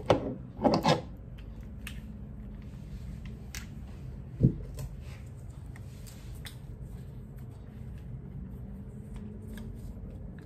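Rustles and light clicks of a charger cable being coiled and handled, with one dull thump about four and a half seconds in, over a steady low hum.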